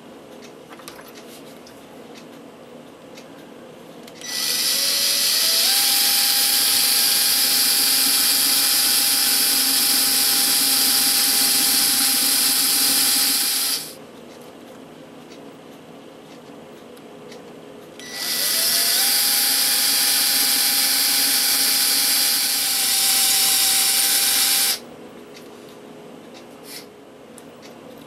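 Electric drill boring holes into a concrete statue leg to take reinforcing pins. It runs twice, several seconds each time, and each run opens with a quick rise in pitch as the motor spins up, then holds a steady whine as the bit cuts.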